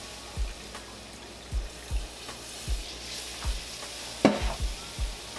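Beef broth and hot water sizzling and bubbling in a skillet over browned flour roux, the start of a pan gravy. A steady hiss carries low thumps every half second or so, and a sharp knock sounds a little past four seconds in.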